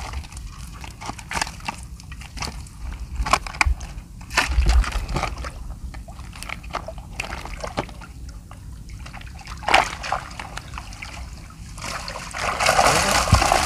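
Seawater sloshing and splashing in short, irregular splashes, turning into louder, steadier splashing near the end.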